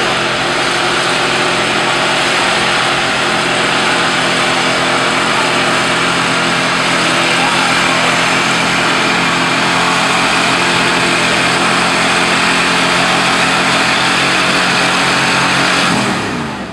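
Old Ford pickup truck's engine running hard and steady under load as it drags a weight-transfer pulling sled through dirt, then the revs fall off sharply near the end as the throttle is let off.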